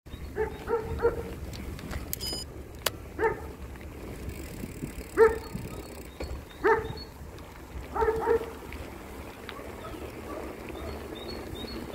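A dog barking: a quick run of three barks, then single barks every second and a half or so, and a closing pair, over a steady low rumble of wind and tyres from a moving bicycle.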